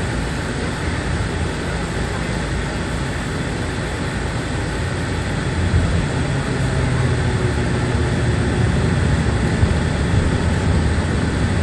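Cabin noise of a Bombardier Dash 8 Q400 on approach: the steady drone of its two Pratt & Whitney PW150A turboprops and the rush of air, with a low hum that grows a little louder about halfway through.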